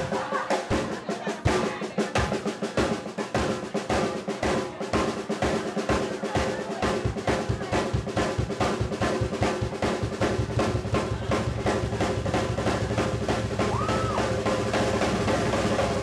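Drum solo on an acrylic-shell drum kit: strokes on drums and cymbals that speed up into a fast, continuous roll, with a steady low bass-drum rumble underneath from about ten seconds in.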